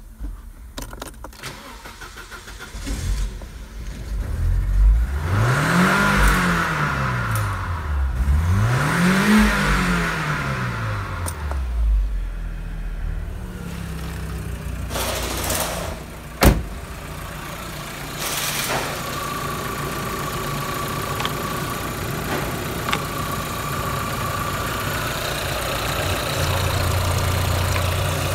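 Opel Omega's 2.2-litre Z22XE sixteen-valve four-cylinder petrol engine starting, revved twice with the pitch rising and falling each time, then settling into a steady idle. A single sharp click sounds partway through the idle.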